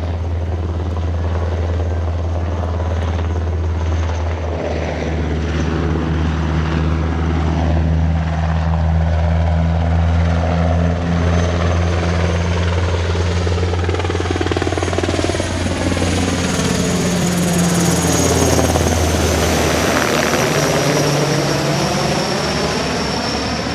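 JASDF UH-60J Black Hawk helicopter flying low overhead and away: a steady deep rotor beat with twin-turboshaft whine, loudest about three-quarters of the way through, after which the high whine falls in pitch as it moves off.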